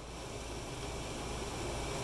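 Steady hiss of two air conditioning units running.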